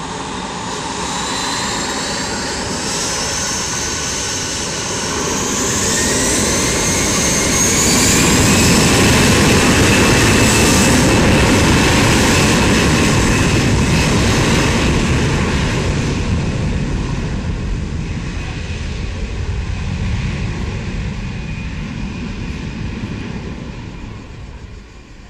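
Airbus A320 jet engines spooling up to takeoff thrust with a rising whine, then a loud steady rumble as the airliner accelerates down the runway, fading as it draws away.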